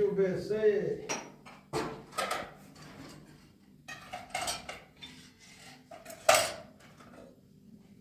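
Metal pots and dishes clattering as they are handled at a kitchen counter: a handful of separate clanks and knocks with a short metallic ring, the loudest about six seconds in.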